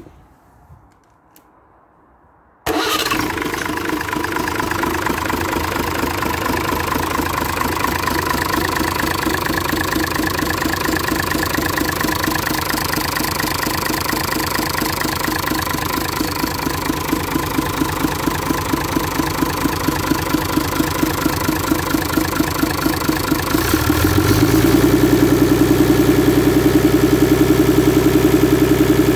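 Perkins 6.372 six-cylinder diesel engine starting suddenly about three seconds in and running at a steady idle. About 24 seconds in its speed is raised with a short rise in pitch, and it then runs faster and louder.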